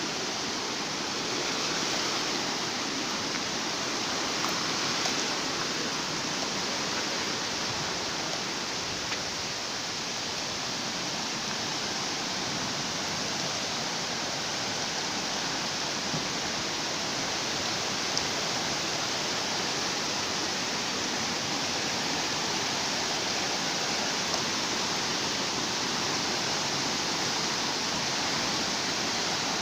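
Heavy tropical downpour with rushing floodwater: a steady, unbroken rush of water.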